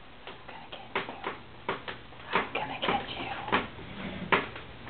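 Chihuahua puppies moving about in a newspaper-lined playpen: irregular light clicks and taps, a dozen or so spread unevenly through the few seconds.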